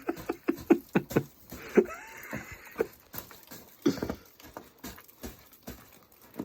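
Boots crunching and stamping in snow: a quick run of thumps in the first second and a half, then scattered, weaker steps.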